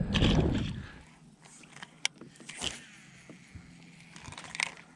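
A brief rumble of wind on the microphone, then a few sharp clicks and light handling noise from a baitcasting rod and reel, with a faint whir as line pays out and a short rattle near the end.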